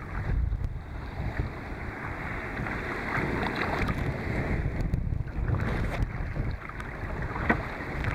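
Strong wind buffeting the microphone, with choppy waves and spray splashing around a kayak as it is paddled into a head wind.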